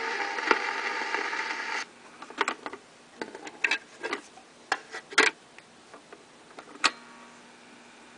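A 1950s R&B 45 rpm single playing on a record player cuts off about two seconds in. A string of sharp clicks and knocks follows as the vinyl record is lifted off the turntable and the next one is put on, with a faint steady hum near the end.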